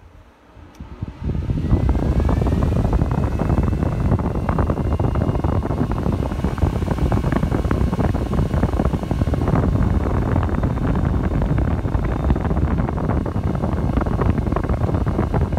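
Antminer S9 Bitcoin miner's cooling fan spinning up about a second in with a rising whine, then running loud and steady at full speed, blowing air out through a dual 3-inch exhaust shroud, with the airflow buffeting the microphone.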